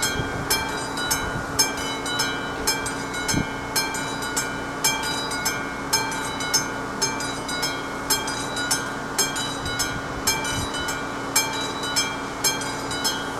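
Classic bell of an AŽD 71 level-crossing warning signal ringing steadily, about two strokes a second, each stroke ringing on briefly.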